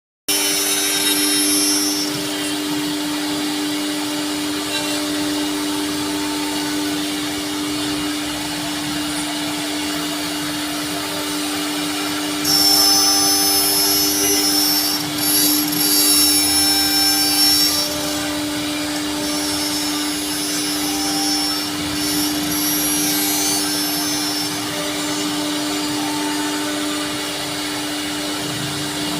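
CNC router spindle running with a steady whine while it cuts a 2D jaali pattern in wood. A louder, hissier stretch of cutting comes about halfway through.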